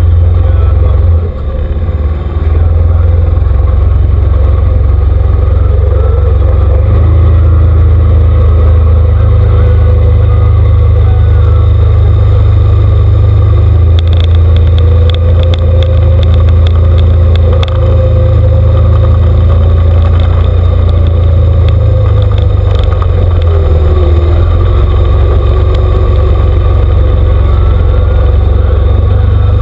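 An ATV engine running steadily under load as the machine drives through shallow trail water, a loud low rumble throughout. There is a run of rapid clicks about halfway through.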